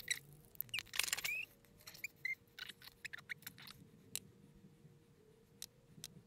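Sped-up audio of makeup being applied: quick, faint clicks and taps with a few short high-pitched squeaks in the first two seconds or so, then sparser clicks over a faint steady hum.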